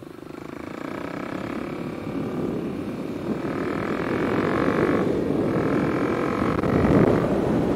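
Kawasaki KLX300's single-cylinder four-stroke engine running through a Delkevic carbon slip-on exhaust, heard from the rider's helmet mic. It gets steadily louder as the bike picks up speed.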